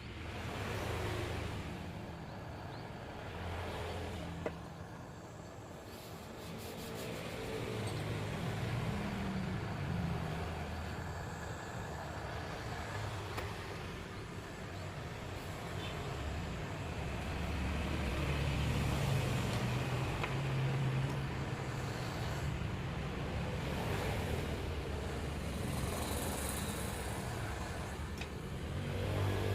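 Motor vehicle running, a low rumble that rises and falls, louder twice.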